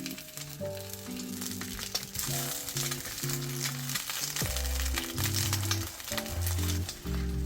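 Food sizzling and crackling as it fries in a pan, over background music.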